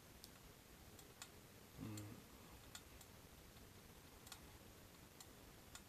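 Near silence with faint, irregular pops and ticks from marinated beef bulgogi sizzling weakly on an electric hot plate whose temperature has dropped. A brief low vocal murmur about two seconds in.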